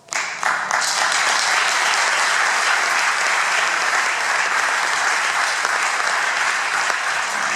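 Concert audience applauding: a burst of clapping that starts suddenly and holds steady.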